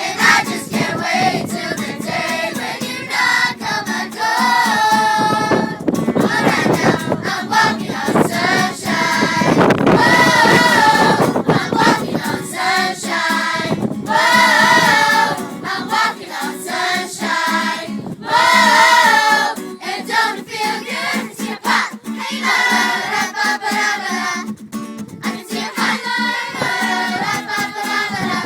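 A children's choir singing a song together, with sustained, wavering sung notes.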